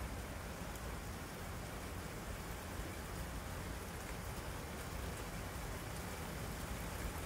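Steady thunderstorm rain falling, an even hiss with a few faint ticks of single drops landing close.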